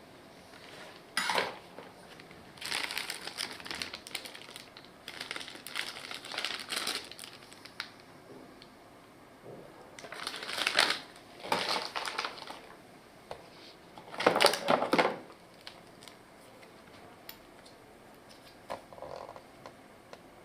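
Packaging being handled during an unboxing: rustling and crinkling in about half a dozen short bursts, with handled items clattering lightly.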